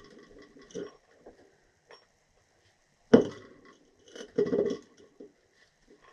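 Tools and metal parts being handled: a few small clicks, a sharp knock about three seconds in, and a short clatter about a second later.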